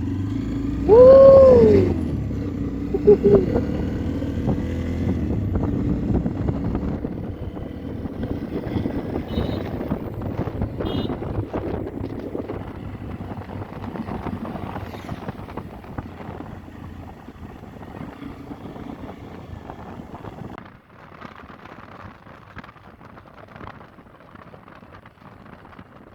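Motorcycle engines pulling away and running, the sound growing steadily fainter. A whooping shout of "woo" about a second in.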